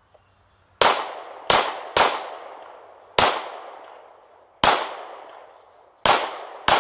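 Handgun fired seven times at an uneven pace, in a quick pair, then single shots and a final quick pair, each shot sharp and dying away over about a second.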